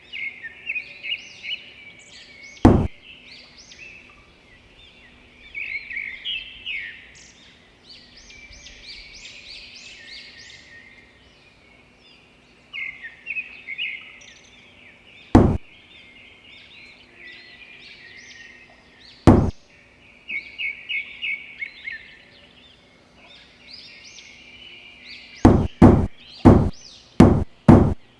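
Small birds chirping over and over, broken by single sharp knocks about three, fifteen and nineteen seconds in, then a quick run of about seven knocks near the end, as of wood being struck with a tool.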